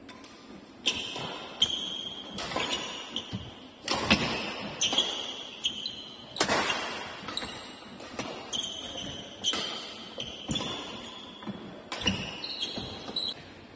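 Badminton doubles rally: rackets striking the shuttlecock in sharp cracks about once a second, with short high squeaks of court shoes on the floor in between, echoing in an indoor hall.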